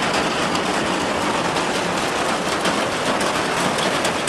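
Heavy rain pouring down: a loud, steady hiss full of fine, rapid drop impacts.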